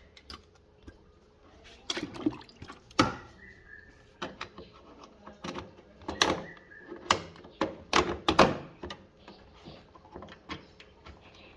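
Irregular sharp knocks and clicks, like objects being handled and set down, with a few louder knocks spread through.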